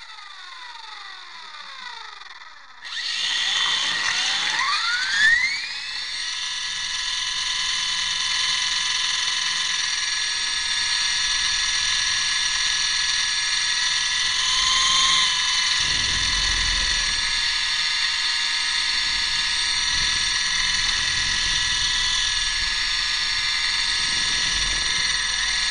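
RC model helicopter's motor and rotor: a faint falling whine as it winds down, then about three seconds in it starts up again with a rising whine, a single knock partway through the spool-up, and runs on with a steady high whine.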